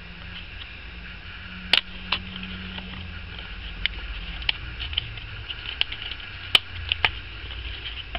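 Handling noise from EVA foam craft pieces being moved and set down on a table: a few short, sharp clicks and taps, the loudest about two seconds in and again past the middle, over a steady low hum.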